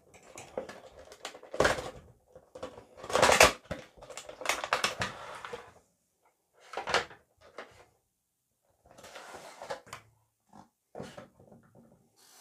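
Cardboard toy box being opened and its clear plastic packaging tray slid out and handled: crinkling plastic, cardboard scraping and sharp taps in short, irregular bursts with quiet gaps.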